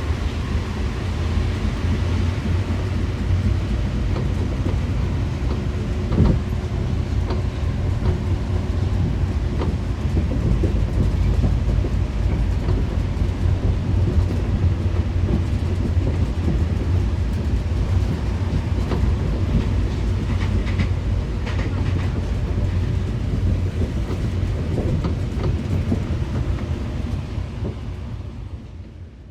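The cabin of a Paris Métro MP 73 rubber-tyred train running: a steady low rumble with scattered clicks and knocks, and a sharper knock about six seconds in. The sound fades out near the end.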